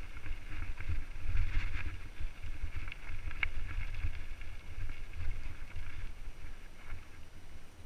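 A mountain bike riding down a rocky, gravelly dirt trail: wind buffets the microphone while the tyres crunch over loose stones and the bike rattles. There is a sharp click about three and a half seconds in.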